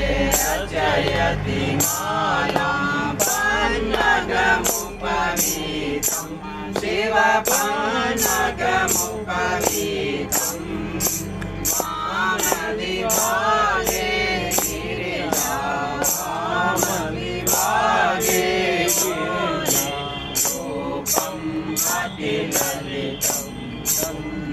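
A group singing an aarti hymn together, with a metal percussion instrument struck in a steady beat a little over once a second.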